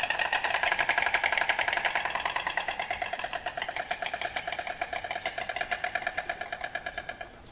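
Marabou stork clattering its bill: a rapid, even rattle that slowly fades and stops near the end.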